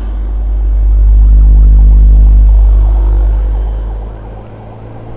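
Heavy wind rumble on the microphone of a motorcycle speeding up, over the steady hum of its engine held at one pitch. The rumble swells for a few seconds and eases off near the end.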